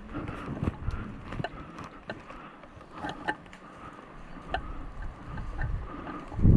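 Irregular sharp clicks of airsoft guns firing, a few a second at most and unevenly spaced, over gusty low rumbling noise on the microphone.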